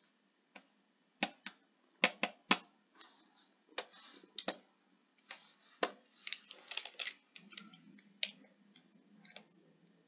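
Computer keyboard keys and mouse buttons clicking: a string of irregular sharp clicks, some in quick runs, as shortcuts and clicks are entered while editing an image.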